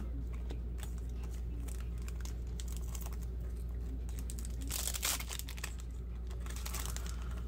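A foil trading-card booster pack being torn open and crinkled by hand, with small rustles and clicks from cards being handled. The loudest crinkle comes about five seconds in, another shortly before the end, over a steady low hum.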